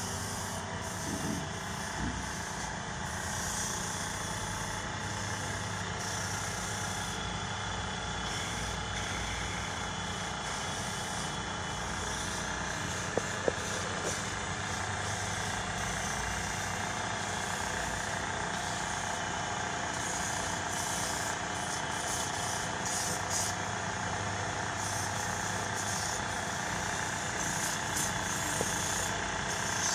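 Electric wood-turning lathe running steadily while a wooden piece is turned on it, with two short sharp clicks about halfway through.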